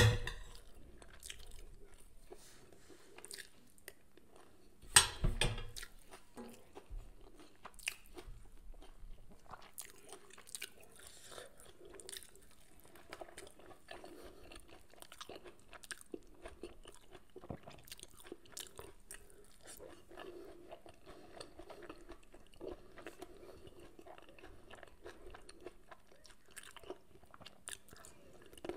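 A person chewing and biting food, with small crunches. A single sharp knock comes about five seconds in.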